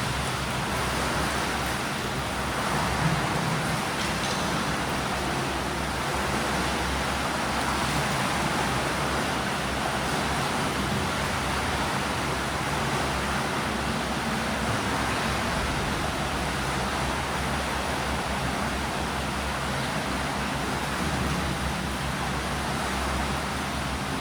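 Steady wash of swimming-pool water noise: swimmers splashing and churning the water during breaststroke drills, with a faint low hum underneath.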